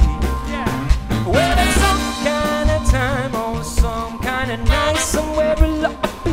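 Live band music: a man singing the lead vocal over electric guitar and a plucked upright double bass, with a steady beat. The voice holds a wavering note about three seconds in.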